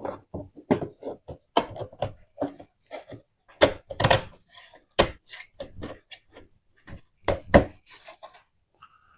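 A string of irregular knocks and clunks in a small room, the sharpest about halfway through and near the end, as parts of the quad are handled and fitted.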